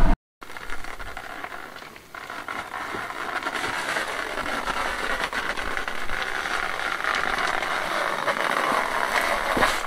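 Small electric cement mixer running, its geared drum turning with a load of concrete: a steady mechanical rattle that grows a little louder after about two seconds.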